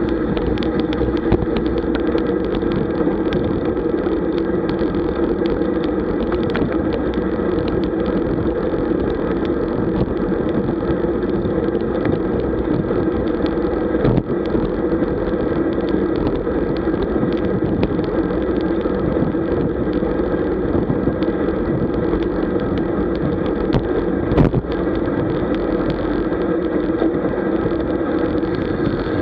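Steady rush of wind buffeting the microphone of a camera on a road bike at about 40 km/h, mixed with tyre and road noise. Two brief knocks come through, about halfway and again later.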